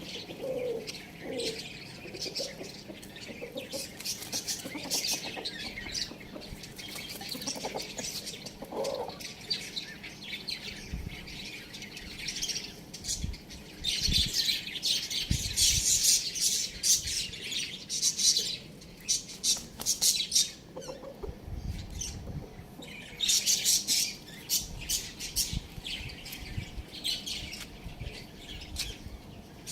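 Many small birds chirping busily in rapid clusters, with a few lower calls and occasional wing flutters.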